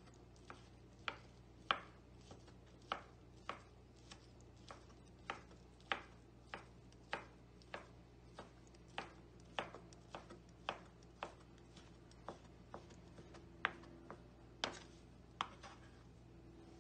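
Chef's knife chopping thin fried egg on a wooden cutting board: a steady series of sharp knife strikes, a little under two a second.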